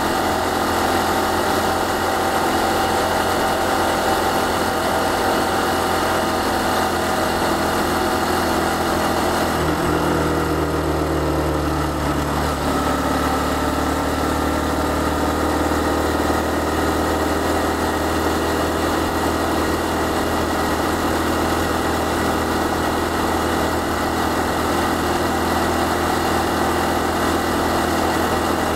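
Honda Cross Cub CC110's small air-cooled single-cylinder four-stroke engine running under way, with wind and road noise. About ten seconds in, the engine note drops in pitch over a couple of seconds and then settles into a steady run again.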